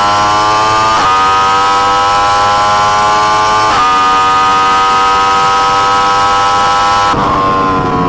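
Yamaha R1's crossplane inline-four at high revs under hard acceleration on track, with two brief upshifts, about a second in and near four seconds. Near the end the throttle closes and the revs drop, with wind rush throughout.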